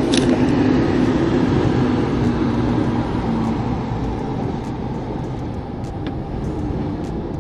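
A vehicle's engine running with a steady hum, loudest at the start and easing off over the next few seconds, with a few faint clicks.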